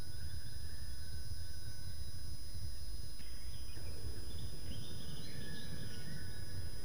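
Outdoor ambience through a webcam microphone: a steady low rumble and a thin constant high electronic whine, with faint songbird calls, a short run of chirping a little past halfway.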